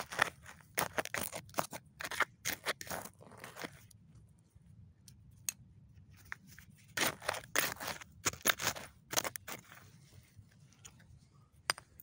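Small hand trowel scraping and digging into soil strewn with broken glass: runs of quick crunching, scraping strokes, a lull of a few seconds in the middle, then another run.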